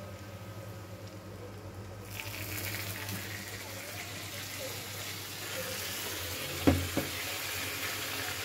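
Hot oil sizzling in a kadai with cumin, garlic and ginger frying; the sizzle jumps louder about two seconds in as finely chopped onion goes into the oil. Two sharp knocks come near the end.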